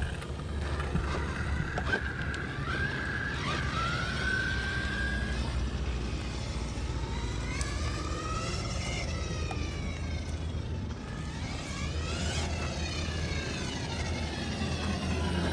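Brushless electric motor of an Eachine EAT02 1/8-scale 4WD RC monster truck whining as it is throttled up and eased off. Its pitch rises and falls several times, most clearly about halfway through and again a few seconds later, over a steady low rumble.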